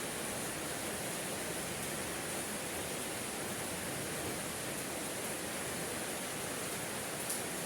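Steady, even rainfall hiss with no breaks, and one faint click near the end.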